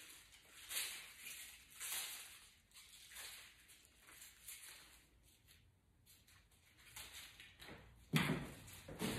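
Rustling and brushing of leafy crown imperial fritillaria stems being handled and turned in the hands, in short soft bouts. About eight seconds in comes a sudden louder bump.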